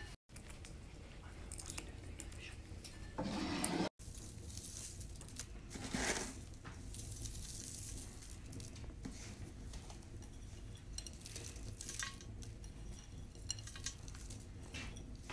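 Hands mixing a minced-meat, onion and rice filling in an enamel basin, with scattered clinks of dishes and utensils. The sound drops out abruptly twice, about a quarter second in and at about four seconds.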